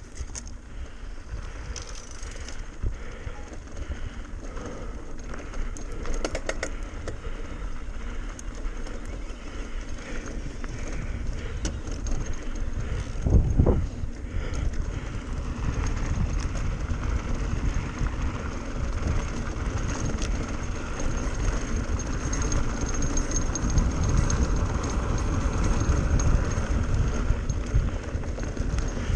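Mountain bike descending a rough dirt trail at speed: wind buffeting the microphone over the tyres' rumble and the bike's rattling, with a heavy thump about halfway through.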